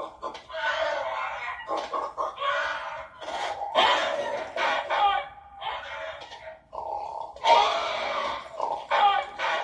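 A rapid string of short squawking, creature-like cries from an animated film's sound-effects track, broken by brief gaps.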